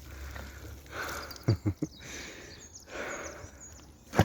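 A person breathing heavily close to the microphone, a breath about every two seconds, with a few sharp knocks from the phone being handled.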